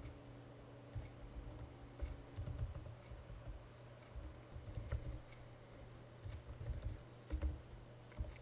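Faint typing on a computer keyboard: short runs of keystrokes about once a second, with brief pauses between.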